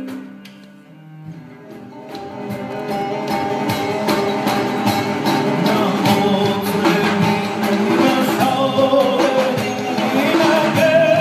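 Live Persian classical music: a male voice singing over a plucked tar, a bowed kamancheh and a hand drum. The music thins out about a second in, then builds steadily louder, with the voice wavering in long held notes.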